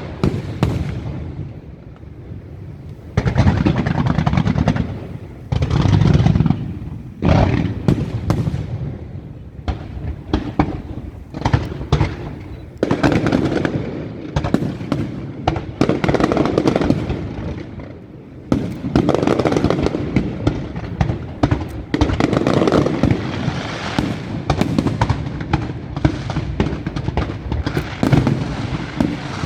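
Aerial fireworks display: a continuous barrage of shell bursts, deep booms and crackling. It starts suddenly and surges in repeated waves every few seconds.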